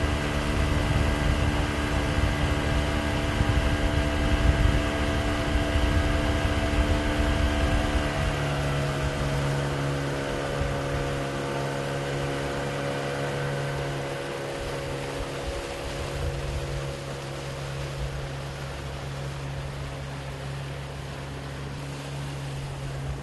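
An engine running steadily, its pitch dropping slightly about eight seconds in and the sound slowly getting quieter.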